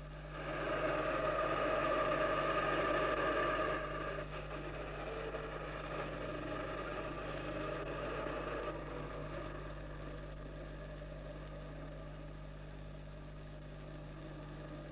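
Motor vehicles running with a steady engine rumble, loudest for the first few seconds and then slowly fading, under a constant low hum from the old film soundtrack.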